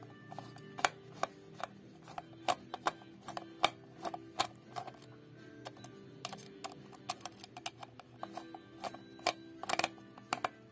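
Irregular sharp clicks and taps, several a second in bunches, from small plastic and metal parts of an electric kettle's base being handled and worked with tools, over a steady low background of music.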